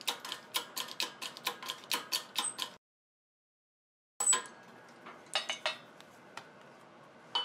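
Metallic clicking from a shop press forcing a ball bearing off a gear-box shaft: a rapid run of clicks, about four a second, then after a short break one sharp clink and a few scattered clicks.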